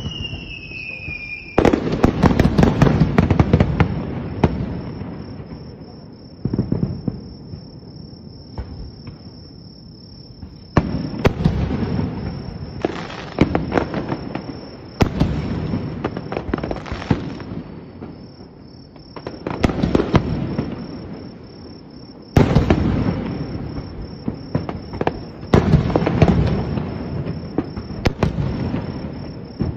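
Aerial fireworks display: shells bursting in repeated volleys of bangs with gaps of a few seconds between them, each volley trailing off in echoes, and a short falling whistle at the very start. A steady high chirring of insects runs underneath.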